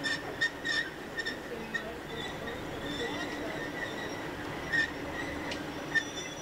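Pair of diesel locomotives moving slowly, their engines giving a steady low hum under a thin high whine from the wheels, with short high-pitched wheel squeals breaking out, several in the first two seconds and again about five and six seconds in.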